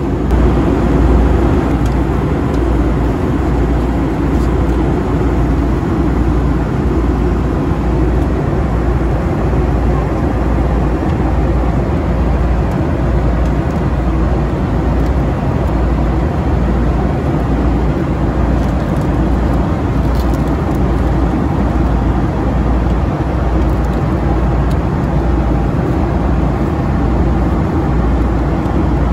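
Steady cabin noise of a Boeing 757-300 in flight: the hum of the jet engines and the rush of air past the fuselage, heard from a passenger seat.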